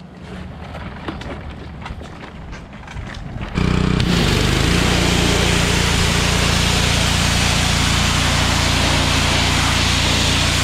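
Ryobi pressure washer running, at first low, then about three and a half seconds in the trigger is pulled and it jumps to a loud steady run under load, with the hiss of the high-pressure water jet spraying onto the fins of an aluminium radiator.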